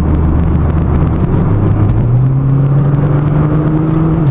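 Nissan GT-R's twin-turbo V6 heard from inside the cabin, pulling under throttle. Its note steps up in pitch about a second in and again about two seconds in, then climbs slowly, over a steady rumble of road and tyre noise.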